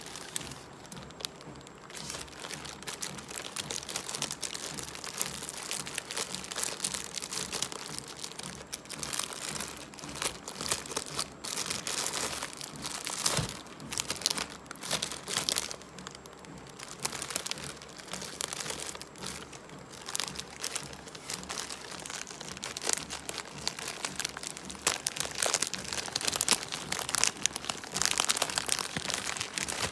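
Plastic food packaging crinkling as it is handled, in uneven crackles that grow louder and softer.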